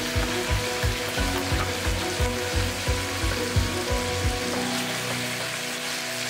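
Pork belly and kimchi sizzling in a frying pan, under background music with a steady low beat that drops out about two-thirds of the way through.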